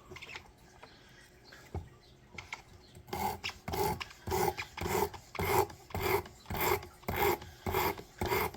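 Knife blade being stroked across coarse 50-grit sandpaper on a Work Sharp Precision Adjust sharpener: a few light clicks, then about three seconds in a rhythmic rasping starts at roughly two strokes a second, reprofiling the edge.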